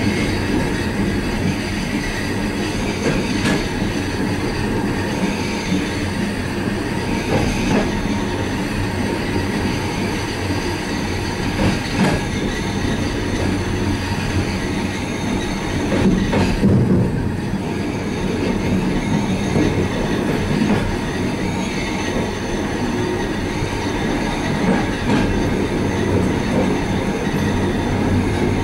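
Suburban passenger train running along the track, heard from inside a carriage's end vestibule: a steady rumble of wheels on rails. A few knocks over rail joints come at irregular intervals, the loudest about two-thirds of the way through.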